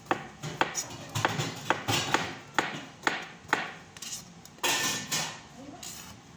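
Kitchen knife chopping vegetables, sharp knocks about twice a second, then a brief louder scraping noise about three-quarters of the way through as the cut pieces are handled.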